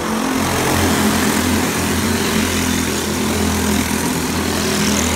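A pack of dirt-track racing go-karts passing close by at speed, several small engines running at high revs together, louder as they come past early on.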